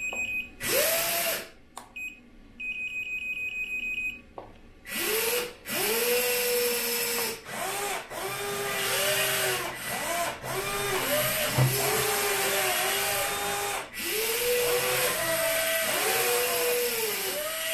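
Electric motors of a 1/14-scale Double Hobby Volvo EC160E RC excavator, electric version, whining in many short back-to-back runs as the machine moves. Each run rises in pitch as the motor spins up, holds, then drops as it stops. High electronic beeping is heard in the first few seconds.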